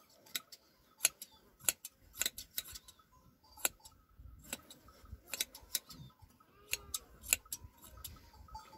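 Hand shears snipping through a sheep's fleece: short sharp clicks of the blades closing, irregular, about one or two a second.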